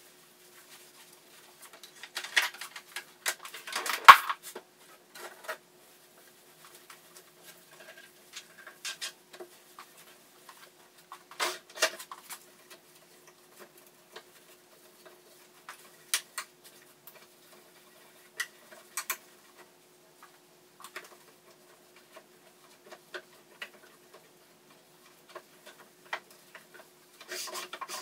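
Small items being handled and set down on a vanity table and in its drawer: scattered clicks, knocks and rustles, the loudest clatter about four seconds in, over a faint steady hum.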